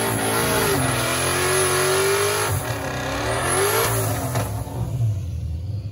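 Ford Mustang doing a burnout: the engine revs up and is held high while the rear tyres spin. The pitch dips and climbs again about halfway through, then the revs ease off near the end.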